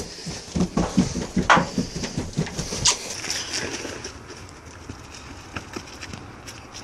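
A quick run of thumps on carpeted stairs, about five a second, lasting two seconds or so. A quieter steady hiss with scattered faint clicks follows.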